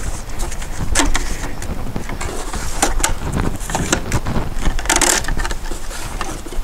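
Fish tape being fed down PVC electrical conduit: scattered clicks and scrapes of the tape against the conduit, with a longer scrape about five seconds in, over a low steady rumble.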